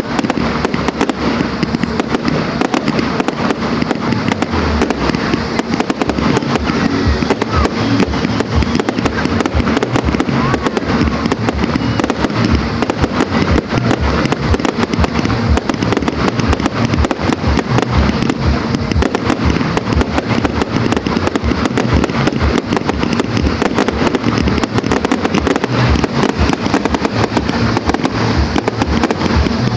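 Display fireworks fired in a rapid barrage: a dense, continuous string of bangs and crackles, with no pause.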